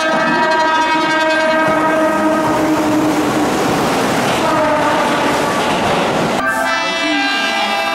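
Keihan electric train horn sounding one long, steady blast that fades out about three and a half seconds in, giving way to the rushing, clattering noise of a train running past. A second horn blast starts abruptly about six and a half seconds in.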